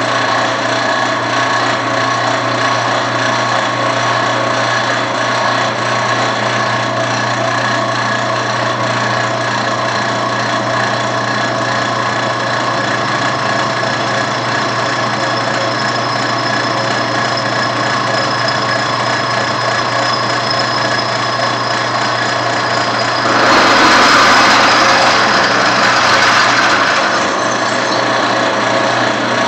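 Bench drill press running steadily with a low motor hum as its bit is fed down into a metal bar. For a few seconds near the end the cutting noise grows louder and harsher.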